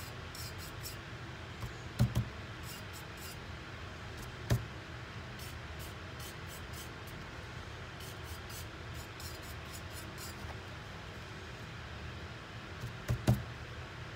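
Faint scratchy swishes of a dry paintbrush dabbing paint onto a hard painted tumbler, over a steady low hiss. A few dull knocks of handling: a pair about two seconds in, one a couple of seconds later, and a pair near the end.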